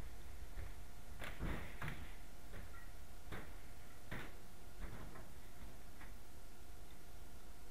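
Scattered short clicks and light knocks, about seven at uneven spacing and bunched in the first two seconds, over a steady low rumble and a faint steady hum.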